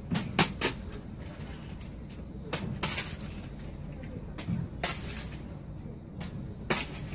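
A series of sharp, brief clicks and knocks at irregular intervals, clustered near the start, around the middle and near the end, over a low steady hum.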